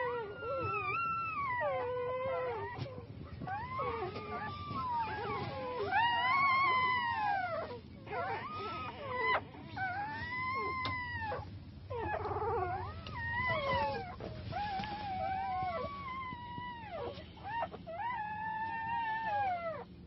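Newborn Kangal puppies whining and squealing, about ten high, arching cries in a row, each rising and then falling, with a few overlapping as more than one puppy calls.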